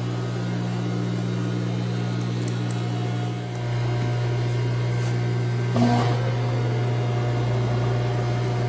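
Milling machine running with a steady electric motor hum, getting a little louder about three and a half seconds in, with a single short knock near six seconds.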